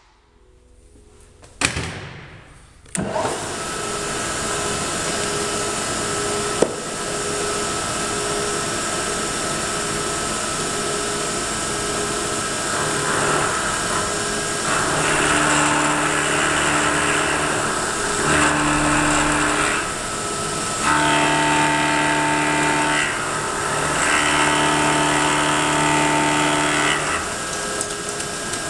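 A soft mallet taps once about two seconds in, then the vertical milling machine's spindle starts and runs steadily. From about halfway through, an end mill cuts the end of a small block held in a vise, adding a louder cutting sound that comes and goes in four or five passes of a few seconds each.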